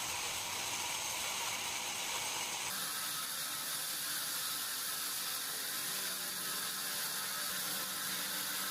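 Steady hiss, its tone shifting abruptly about three seconds in.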